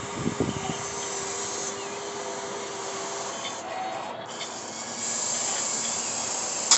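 RC model hydraulic excavator working dirt: a steady whine from its motor and pump for the first three seconds or so over an even hiss, a few knocks right at the start, and a sharp click at the very end.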